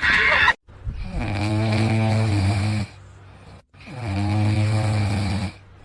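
Snoring: two long, drawn-out snores about a second apart, each lasting about two seconds.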